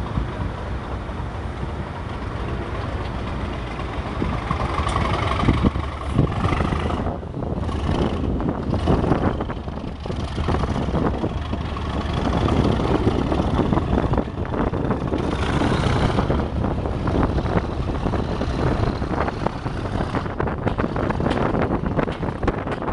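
English Electric Class 37 diesel locomotive 37109 working, its V12 diesel engine running loud and steady, with wind buffeting the microphone. A faint high whistle rides over it for a few seconds around the middle.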